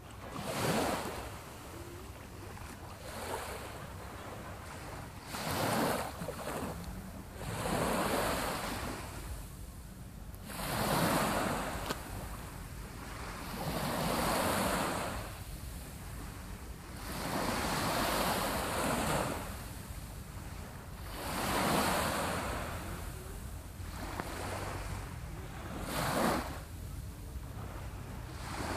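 Small waves breaking and washing up on a sandy beach, a rising and falling surge of surf every three to four seconds, with a low rumble of wind on the microphone underneath.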